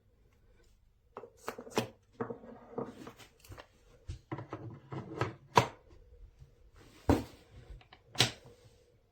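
A string of irregular clicks and knocks, with the loudest knocks a little past halfway and again near the end, like hard objects being handled and set down.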